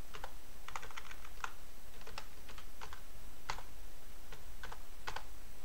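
Computer keyboard being typed on: a dozen or so single keystrokes at an uneven pace, over a steady low hum.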